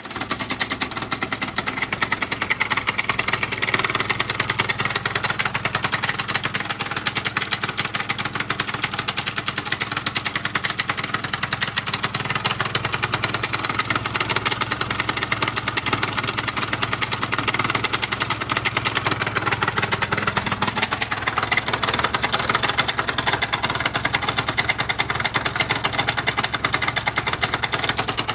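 Two-stroke scooter engine idling steadily with a rapid knocking in its running. The knock shows only at idle, not at speed, even though the crankshaft has no play and the piston kit is new, so its cause is unknown to the owner.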